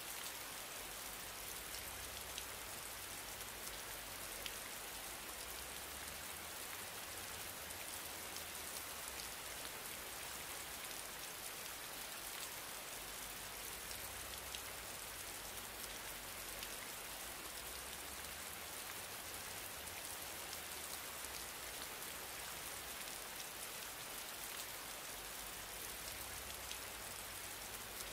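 Steady hiss with a few faint scattered ticks and a faint low hum underneath.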